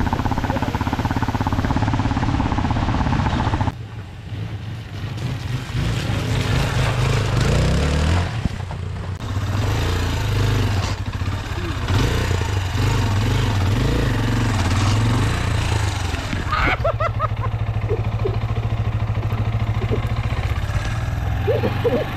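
Falling water rushing steadily, then after about four seconds a cut to a motorcycle engine running at low revs, rising and falling, as the bike is ridden slowly through deep mud.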